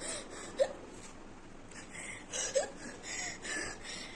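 A woman hiccuping: two short, sharp hics about two seconds apart, with breathy gasps between them. The hiccups are brought on by eating a very hot red chilli.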